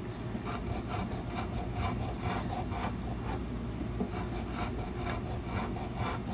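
A large metal coin scraping the latex coating off a scratch-off lottery ticket. It goes in quick, rasping back-and-forth strokes, about four a second.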